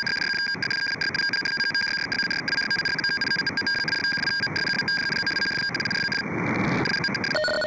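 Shortwave receiver audio from an RTL-SDR in upper-sideband mode: static hiss with steady whistling data tones, which the operator takes for a radioteletype (RTTY) signal. Near the end the tuning shifts, the hiss changes and a new, lower set of tones takes over.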